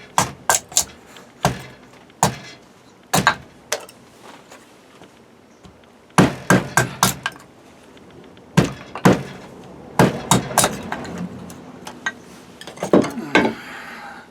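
A series of sharp knocks and cracks in short bursts, like hard objects being struck or broken. The bursts come about every two to three seconds.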